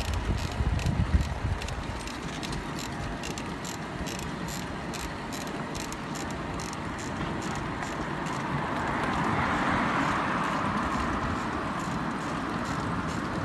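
Pedal go-karts and a towed bicycle trailer rolling along asphalt: steady tyre and road noise with light clicking and rattling. A low rumble of wind on the microphone in the first two seconds, and a hiss that swells about nine seconds in.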